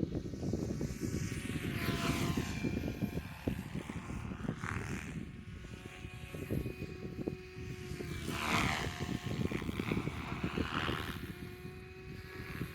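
Helicopter flying, its engine and rotor sound swelling and fading several times as it moves about, over steady wind rumble on the microphone.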